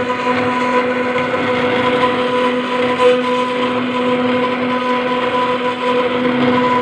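CNC router spindle running steadily as its bit cuts into granite: a steady whine over a rough grinding hiss.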